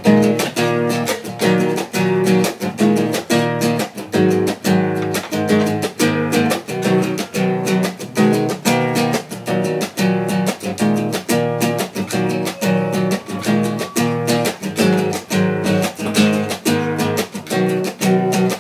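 Nylon-string classical guitar strummed in a steady, even rhythm, repeating chords.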